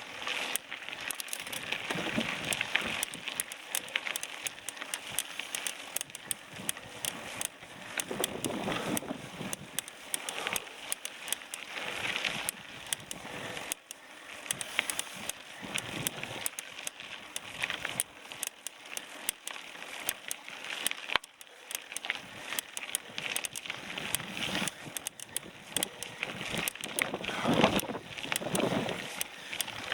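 Bicycle riding over a rough track: a steady rolling noise from the tyres, full of small clicks and rattles, with wind buffeting the microphone.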